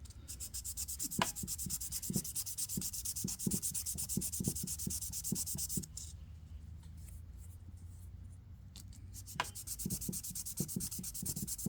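A plastic shifter insert rubbed back and forth on 600-grit sandpaper in short, quick strokes, sanding it down so it will slide into its bracket without binding. The strokes pause for a few seconds in the middle, then resume.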